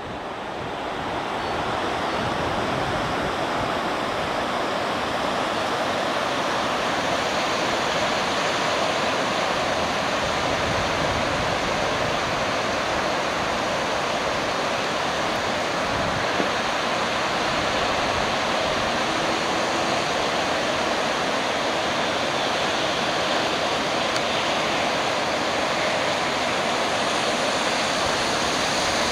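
Steady rushing of floodwater flowing across and beside a road, a continuous even noise.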